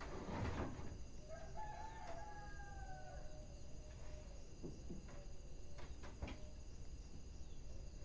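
Wood fire crackling with sharp pops, the loudest just after the start. A rooster crows in the background for about two seconds, starting about a second in.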